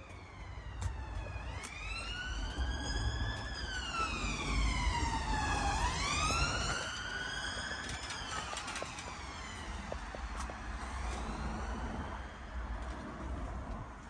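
Emergency-vehicle siren wailing, its pitch sweeping slowly up and down over a few seconds each way; it is loudest in the first half and fades out toward the end. A low rumble lies beneath it.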